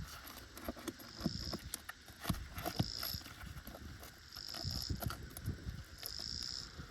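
Irregular knocks, clicks and scrapes of hand tools working on brittle asphalt roof shingles, loosening the nails to free a shingle. A high buzz repeats in short stretches about every second and a half behind it.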